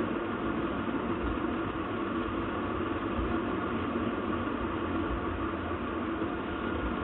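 Steady background hum and hiss with no distinct clicks or knocks.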